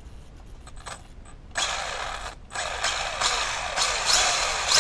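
LC Racing LC12B1 RC car's electric motor and gear drivetrain whirring in throttle bursts: a short one about a second and a half in, then a longer one rising and falling in pitch through the rest.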